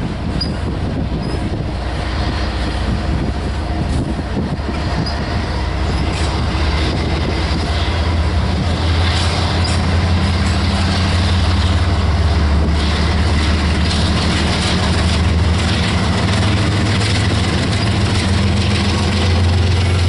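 Loaded covered hopper cars roll past with steady wheel-on-rail noise and some wheel squeal. The diesel engine of a Canadian Pacific GE ES44AC rear unit then comes in as a low drone that grows louder through the second half and stays strong.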